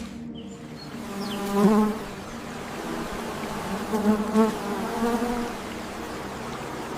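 A flying insect buzzing, its pitch wavering as it moves about, loudest about a second and a half in and again around four seconds in.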